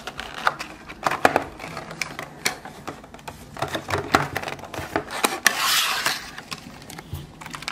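Stiff clear plastic blister pack being pried and pulled off its cardboard backing card: scattered clicks, taps and crackles of the plastic, with a longer crinkling rustle about two-thirds of the way through as the blister comes free.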